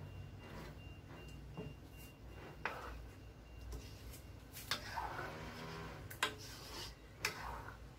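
A plastic spoon stirs thick mung bean stew in a non-stick wok, knocking sharply against the pan four times, with scraping and stirring noise in between.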